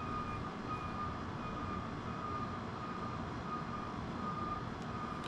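An electronic beep at one pitch, repeating in short pulses over a steady background hum.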